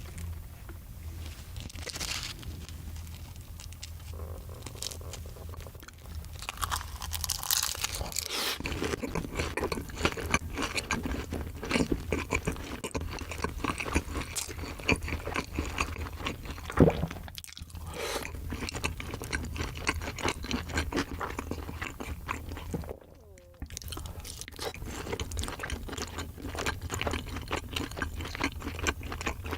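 Close-miked crunching and chewing of crispy fried food, with bites and mouth sounds. It gets busier and louder about a quarter of the way in and drops out for a moment about three-quarters of the way through. A steady low hum runs underneath.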